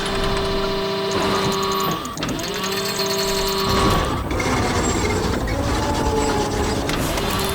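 Cartoon construction-vehicle engine sound effect: a steady mechanical hum and whirr that dips and rises in pitch twice.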